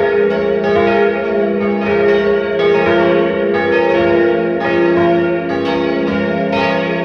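Several church bells pealing together, a new strike about once a second over long ringing tones that overlap.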